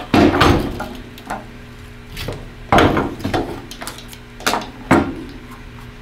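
Hard knocks and clatter of a Van Dorn sampler's clear plastic tube and end cap being handled and set down on a lab benchtop among tools. There is a loud cluster of knocks at the start, another about three seconds in, and two more near five seconds.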